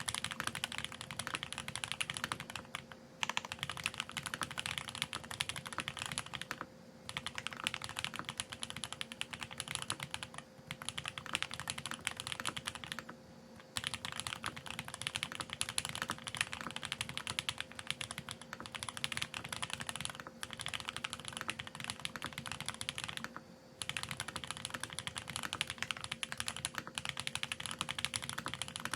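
Fast, continuous typing on a custom mechanical keyboard fitted with lubed TTC Speed Silver v2 linear switches and GMK ABS keycaps. It comes in runs of a few seconds, broken by brief pauses.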